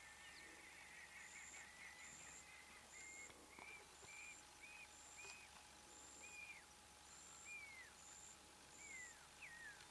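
Faint natural background: a bird repeating short whistled notes, one to two a second, that change from level chirps to downward slurs near the end. A high thin note pulses evenly about once a second behind it.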